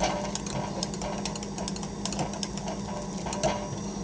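Wire whisk beating thick, gelled homemade soap in a glass measuring jug, its wires clicking and scraping against the glass in quick, uneven strokes. The soap has set firm and is being whisked to loosen it back into liquid soap.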